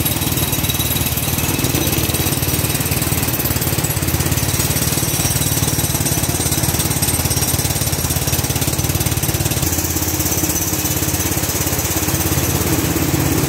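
Heavy rain pouring down: a steady, loud rush with a rapid patter of drops close by.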